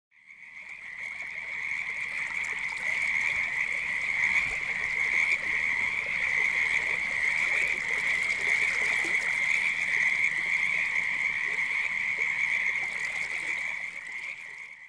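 Chorus of many frogs calling in a steady, high-pitched trill, fading in at the start and fading out near the end.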